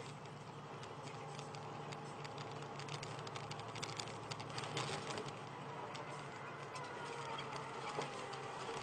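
Vehicle cab noise on the move: a low, steady engine and road drone with many small ticks and rattles scattered through it.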